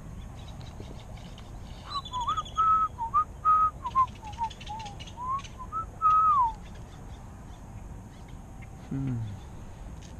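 A person whistling a short tune of clear, sliding notes for a few seconds, followed near the end by a brief low hum.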